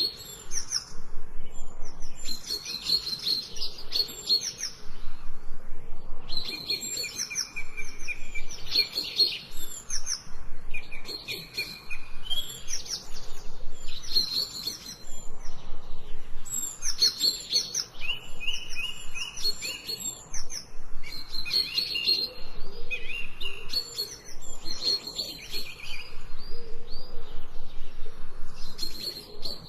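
Songbirds singing: short phrases of rapid, high chirps and whistled notes, repeating every second or two.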